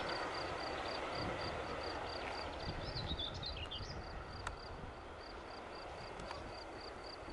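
Rumble of a container freight train fading as its last wagons move away along the track. A steady high-pitched pulse repeats about three times a second throughout, and birds chirp briefly about three seconds in.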